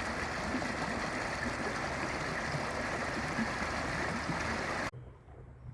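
Steady rushing water, an even noise with no rhythm, that cuts off suddenly near the end and leaves a much quieter background with a faint low hum.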